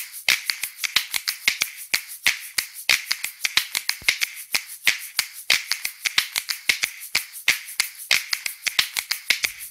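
Rapid, uneven run of sharp dry clicks, about five or six a second: a percussive soundtrack intro, like snaps or ticks, with no melody under it.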